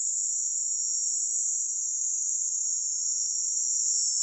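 Steady, high-pitched insect chorus, a continuous shrill buzz that holds unbroken without pauses.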